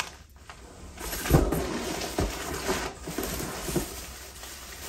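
Rustling and handling noise as packaged medical supplies are moved and lifted out of a cardboard box, with a few knocks, the strongest a little over a second in and at about two seconds.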